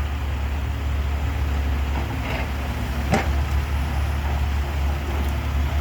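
Heavy construction equipment's diesel engine running with a steady low rumble. Two sharp knocks come about two and three seconds in.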